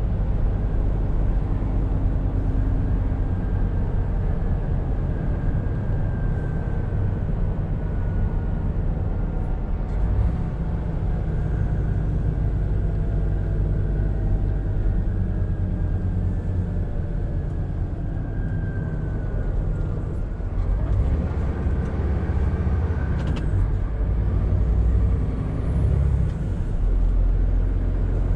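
Scania R520 truck on the move: a steady low engine drone with road noise, and faint whines that slide up and down in pitch as the engine speed changes.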